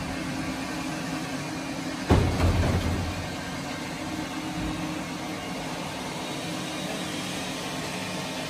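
A steady machine drone runs throughout. About two seconds in, a single heavy knock rings out and dies away, as the hanging marble slab bumps against the truck's loading bed.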